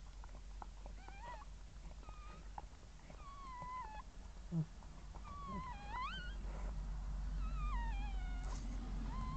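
Newborn puppies squeaking and crying in a string of thin, wavering calls that slide up and down in pitch, about one a second, over a steady low hum. A short low thump comes about halfway through.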